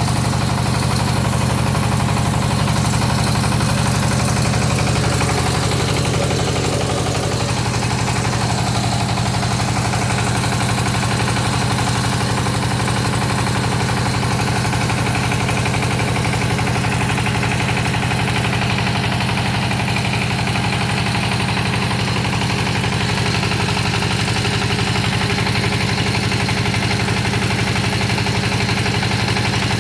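Engine of a hydraulic water-well drilling rig running steadily, a touch louder for the first few seconds and then holding an even pace.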